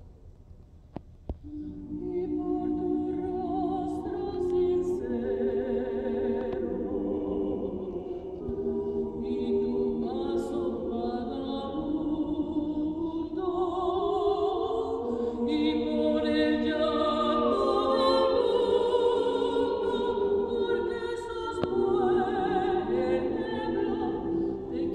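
Vocal ensemble singing in several-part harmony, entering about a second and a half in after a short pause.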